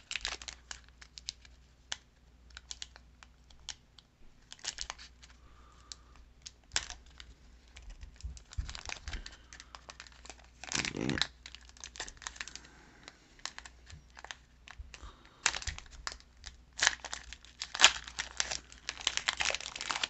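Foil wrapper of a Pokémon Burning Shadows booster pack crinkling and tearing as it is worked open by hand. Scattered light crackles at first, a longer rip about eleven seconds in, and dense crinkling near the end as the pack comes open.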